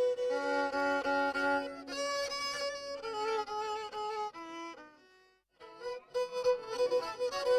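Black Sea kemençe, a small three-stringed bowed fiddle, playing a folk tune in short notes, often with two strings sounding together. Near the middle the notes step downward and fade out, there is a brief pause, and then the playing starts again.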